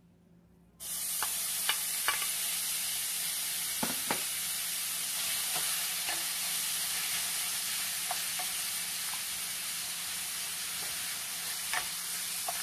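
Raw ground meat dropping into hot oil in a stainless steel pan, starting to sizzle suddenly about a second in and then sizzling steadily, with scattered knocks and scrapes of a wooden spatula stirring and breaking it up.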